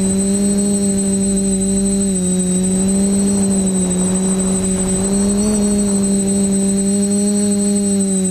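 TBS Discovery quadcopter's electric motors and propellers humming steadily, heard from its onboard camera, with a thin high whine above. The pitch dips slightly about two seconds in and rises briefly around five and a half seconds.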